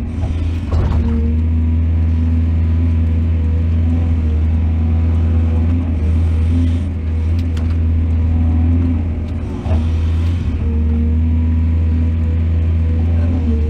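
Excavator's diesel engine running steadily at working speed, with a few sharp knocks scattered through.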